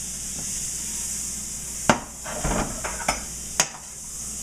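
Butter sizzling in a hot frying pan, with a few sharp knocks of handling and utensils against the pan about two to three and a half seconds in.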